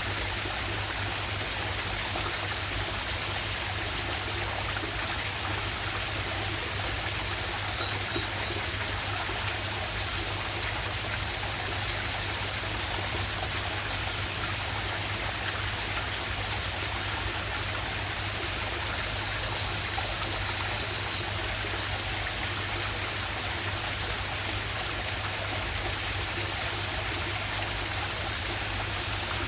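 Waterfall and river water rushing steadily, an even hiss with no break.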